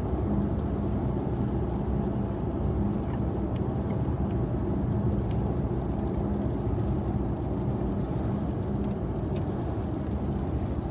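Steady road and engine hum from inside a moving car, with a constant low drone.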